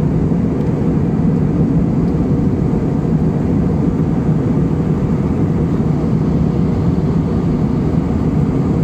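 Steady cabin noise of an airliner in flight, heard inside the passenger cabin: an even, low rush of jet engines and airflow that does not change.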